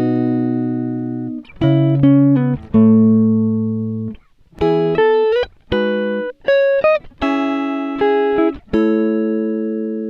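Background music: plucked guitar chords, each struck and left to ring and fade before the next.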